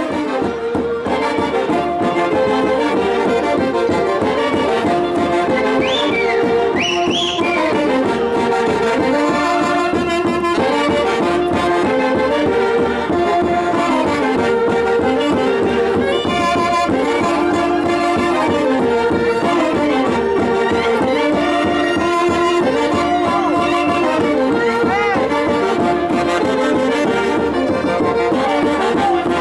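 A live band plays Santiago dance music of Peru's Mantaro Valley: wind instruments repeat a melody in parallel parts over a steady beat. A few short high rising sounds cut through about six seconds in.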